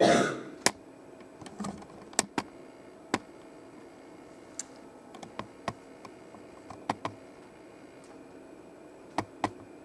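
About a dozen sharp, irregularly spaced clicks and taps over quiet room tone, after a brief loud noise at the very start.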